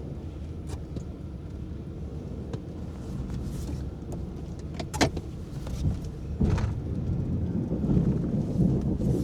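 Snow plow truck running and pushing snow: a steady low engine rumble, a sharp clank about five seconds in, and a louder rumble from about six and a half seconds.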